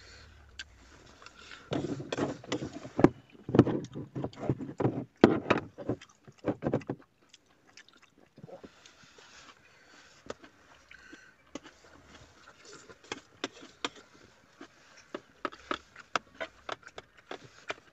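Close-up eating sounds: biting and chewing food, with clicks and rustles from handling the food. A dense, louder run of crackling clicks takes up the first few seconds, then lighter scattered clicks come near the end.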